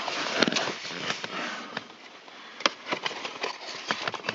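Handling noise as a small part is worked up into place under a car's instrument panel: rustling with scattered sharp clicks, the sharpest about two and a half seconds in.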